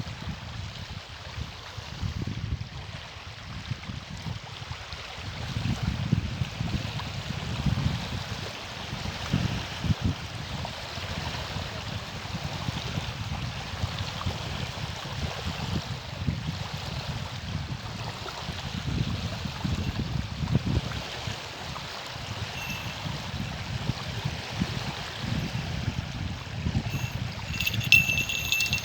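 Strong gusty wind buffeting the microphone in low surges, over a steady rush of lake water lapping at the shore. A brief high ringing near the end.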